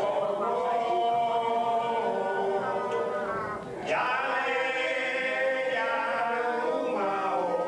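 A rumba chorus of several voices singing a chant together in long held notes: two phrases with a short break a little before the middle.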